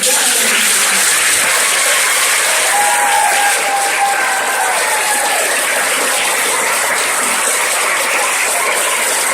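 Audience applauding, loud and steady, starting suddenly. A single voice calls out over the clapping for a couple of seconds about three seconds in.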